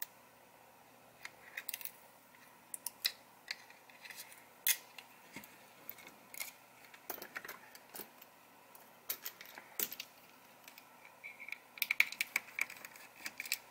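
Scattered small clicks, ticks and scrapes of hand tools on the plastic shell of a Logitech Anywhere MX mouse: a thin metal pick working under the battery-compartment label. Near the end comes a quicker run of clicks as a small screwdriver turns out the screw hidden beneath it.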